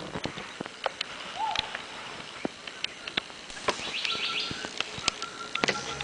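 Rainforest ambience with scattered bird calls: a short whistled note that rises and falls, then a fast high trill. Sharp clicks and taps are heard throughout, and music comes in near the end.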